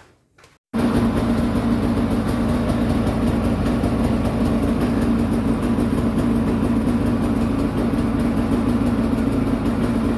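Polaris Pro RMK snowmobile's two-stroke twin engine idling steadily, running evenly now that a loose connector to the engine computer under the airbox has been plugged back in.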